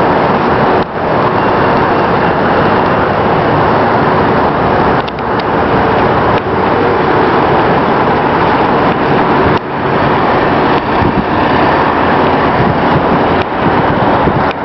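Steady loud roar of rooftop air-handling equipment running, with a faint hum through it and brief dips every few seconds.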